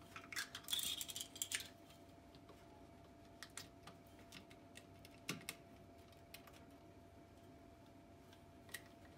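Light metallic clicks and scrapes as the damper shaft and piston of a Fox Float EVOL ATV shock are pulled up out of the shock body: a quick cluster of clicks about half a second in, then a few scattered single clicks.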